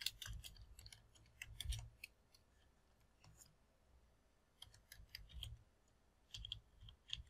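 Computer keyboard typing: faint keystroke clicks in short bursts, with a quieter stretch of about two seconds in the middle.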